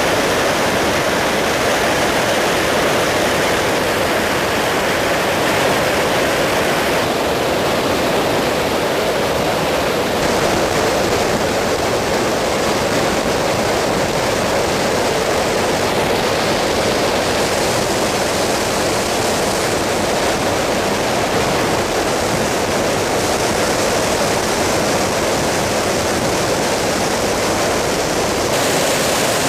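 Steady, even noise of an aircraft in flight, engines and rushing air blended into one unbroken sound at a constant level.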